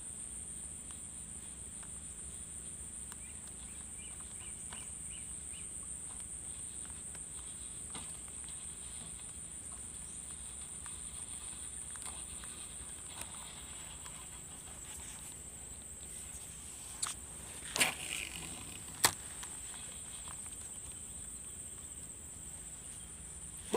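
Steady high-pitched drone of an insect chorus, with a few sharp clicks and knocks about three quarters of the way through.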